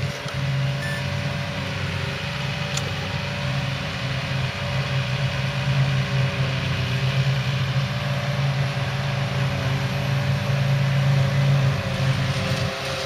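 Diesel engine of heavy silage-harvesting machinery running steadily: a deep, even hum.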